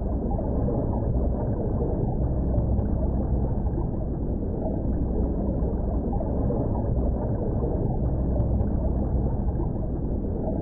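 Underwater ambience sound effect: a steady, muffled low rumble with a gurgle in it.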